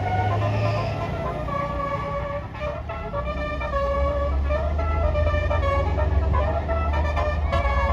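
Bus basuri musical air horn playing a tune of stepped notes, held at first and then quicker and shorter after about three seconds, over the steady low rumble of the bus engine.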